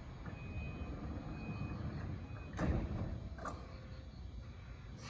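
Door-closing warning on a JR E235 series 1000 train: three evenly spaced beeps, then the sliding doors shut with two knocks about a second apart, over the low hum of the standing train.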